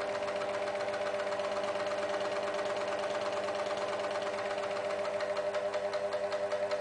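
Record Power SS16V variable-speed scroll saw running with no load: a steady motor hum over the fast, even rhythm of the reciprocating blade arm.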